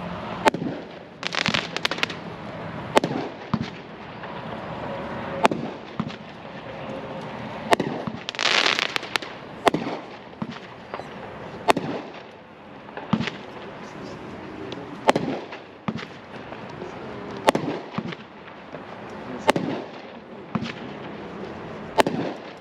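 Brothers Fireworks 'Security Breach' 51-shot 500-gram cake firing, with a sharp shot report about every two seconds. Twice, once near the start and once about a third of the way in, a shot is followed by a longer crackling burst.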